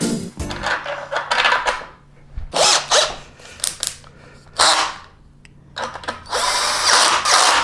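Cordless drill on a low setting driving bolts in four short runs, the last one the longest.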